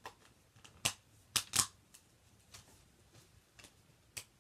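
Discs and their case being handled: a few sharp clicks and taps, the loudest a close pair about a second and a half in, with one more near the end.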